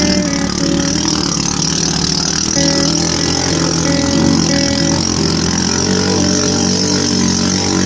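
A vehicle engine running steadily while driving, with road noise and a few short high tones over it.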